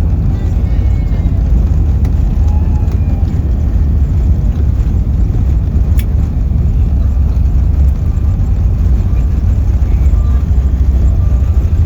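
Steady low rumble of a moving vehicle heard from inside, with a single sharp click about halfway through.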